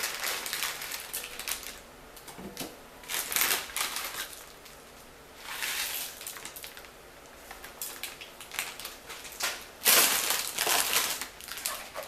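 Plastic instant noodle packets crinkling and rustling as they are handled, in irregular bursts with short pauses, loudest about ten seconds in.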